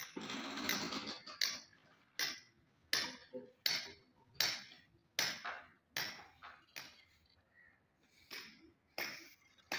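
A second of dense noise, then repeated sharp hammer knocks, roughly one every three-quarters of a second, with a short pause near the end.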